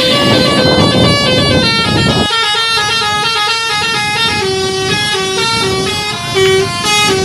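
Basuri multi-tone musical 'telolet' horn on a truck playing a fast melody of short stepped notes, like a tune on a keyboard. A rumble under it stops about two seconds in, leaving the horn notes alone.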